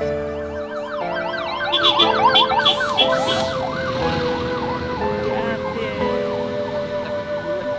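Sirens on passing convoy vehicles, several at once, in rapid up-and-down yelps from about a second in that give way to slower rising and falling wails, over steady background music.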